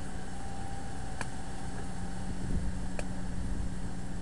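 Steady low hum of a motor vehicle, with a constant low drone under it and two faint sharp clicks, one about a second in and one about three seconds in.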